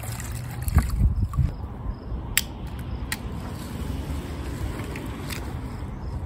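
Engine coolant from a school bus heater draining out of a rubber hose into a plastic-lined bucket, over a low rumble, with a few sharp clicks as the hose is handled.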